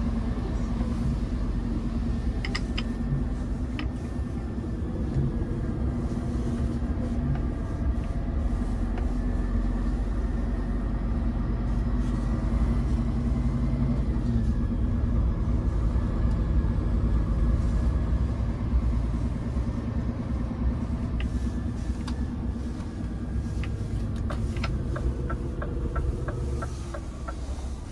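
Scania P410 truck's inline-six diesel heard from inside the cab while driving on snow: a steady low drone with a faint whine on top. Near the end the drone eases and a quick run of light, even ticks comes in.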